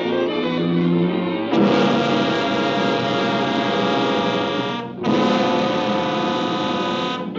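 Orchestral film score: a lighter passage of separate notes, then two long, loud brass chords, the first held about three seconds, the second about two after a brief break.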